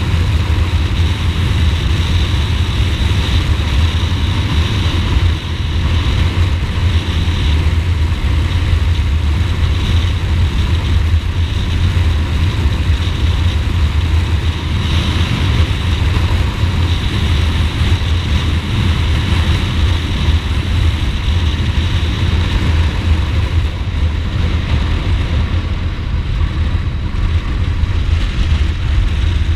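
Ducati Multistrada motorcycle running steadily on the road, its engine under a heavy, even rush of wind and road noise.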